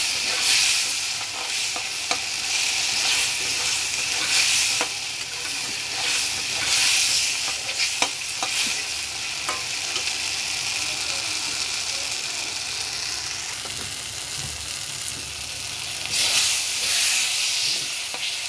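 Mashed ridge gourd paste frying and sizzling in hot oil in a metal kadai, stirred with a spatula that scrapes and clicks against the pan now and then. Its water has cooked off and the paste is nearly done.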